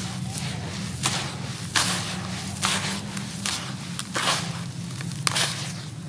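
Crumbled gritty sand-cement pouring from hands back into a heap in a basin: repeated hissing showers of grit, some with a sharp crunchy start, over a steady low hum.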